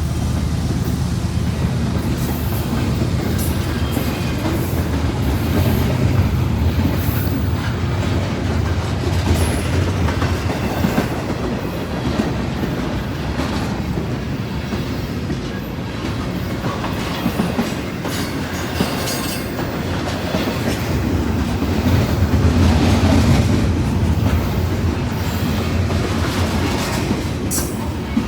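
Double-stack container freight train rolling past: a steady low rumble of the cars with irregular clicks and clacks of the wheels over the rail.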